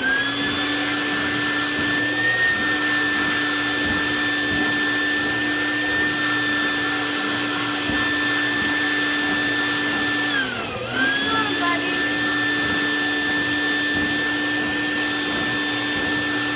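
Foot-pedal plush-toy stuffing machine running, its blower blowing fluff through a metal tube into a teddy bear with a steady whine. About ten and a half seconds in, its pitch sags briefly and then climbs back up to speed.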